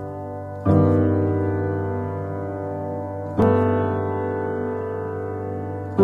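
Background music: slow piano chords, a new chord struck twice, each left to ring and fade.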